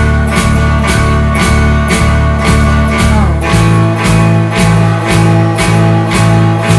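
A blues band playing an instrumental passage: electric guitars over a steady bass line, with drums keeping an even beat of about two hits a second.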